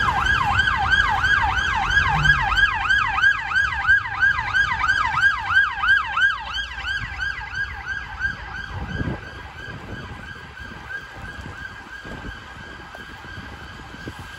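Emergency vehicle siren in fast yelp mode, rising and falling about three to four times a second over low traffic rumble. It is loud at first and fades away after about seven seconds as the vehicle passes.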